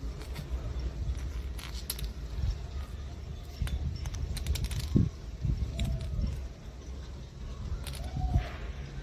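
Scattered light clicks and small rattles from a cat toy, a thread spool on a string, being handled and dropped on stone paving, with one sharper knock about five seconds in, over a steady low rumble.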